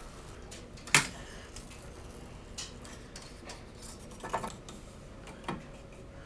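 Scattered light clicks and ticks from handling a self-adhesive measuring-tape strip as its backing is peeled off and it is pressed down onto an aluminium router-table fence extrusion, with a sharper click about a second in.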